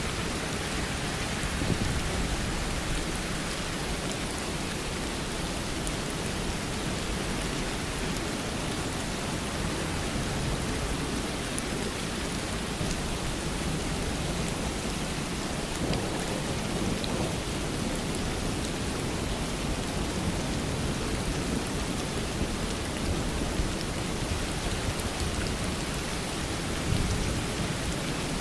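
Steady rain falling, a dense even hiss with a low rumble beneath it that swells slightly around the middle and near the end.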